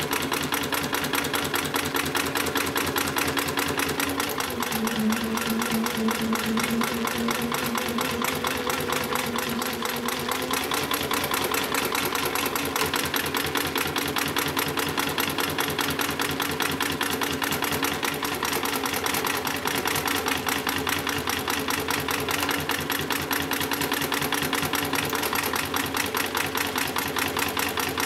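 HIGHTEX 7273BV heavy-duty walking-foot industrial sewing machine stitching steadily through a thick multi-ply polyester lifting sling, a fast, even clatter of needle and feed strokes. A steady motor hum joins about four seconds in and fades out about ten seconds in.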